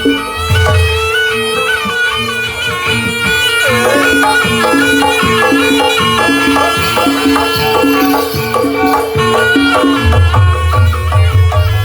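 Traditional Javanese barongan accompaniment music, loud: a reedy wind-instrument melody over a held drone, with regular percussion. Heavy low drum or gong beats sound at the start and come back about ten seconds in.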